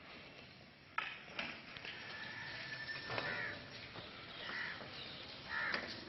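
Crows cawing a few times in the second half, with a sharp knock about a second in and a thin steady whistle-like tone lasting about a second.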